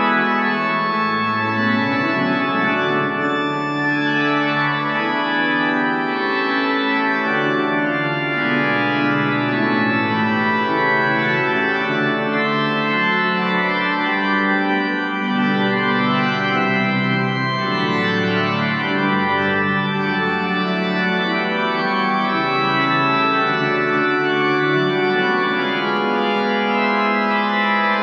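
Church organ playing the entrance voluntary: full, sustained chords with a moving bass line, at a steady level.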